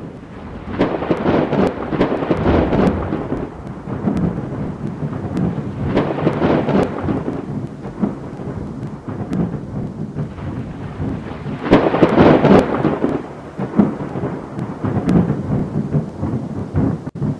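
Thunderstorm: repeated rolls of thunder with sharp crackles, the loudest about twelve seconds in, over a steady hiss of rain.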